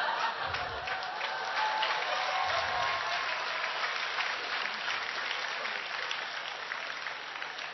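Large audience clapping, steady and fading slowly towards the end.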